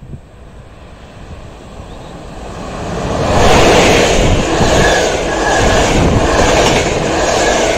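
An EP09 electric locomotive hauling a passenger express approaches and passes close at speed. A rumble grows louder until about three seconds in, then the coaches rush past in a loud, steady roar of wheels on rails.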